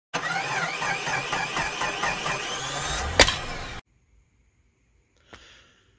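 Logo intro sound effect of a car engine with a wavering pitch, ending in a sharp bang a little after three seconds in and cutting off abruptly soon after. A faint click follows near the end.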